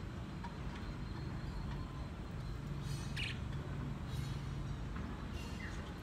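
Caged pet budgerigars giving a few short high chirps, about three seconds in and again twice near the end, over a steady low hum.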